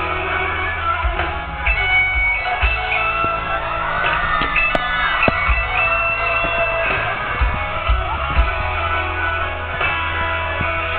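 Live rock music led by electric guitar, with sustained notes over a heavy, thumping low end.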